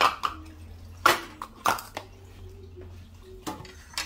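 Kitchenware being handled on a stone countertop: several separate short knocks and clatters as a plastic bowl is moved and a wooden spoon is lifted off a ceramic spoon rest, the sharpest about a second in.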